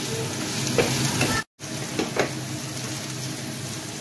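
Vegetables and onion sizzling as they fry in oil in a non-stick frying pan, stirred with a wooden spatula, with a few short scrapes of the spatula against the pan. The sound cuts out for an instant about one and a half seconds in.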